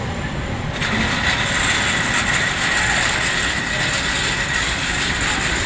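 Automatic ceramic-block loading machinery running with a steady low machine noise. About a second in, a louder high whine with hiss starts and holds steady.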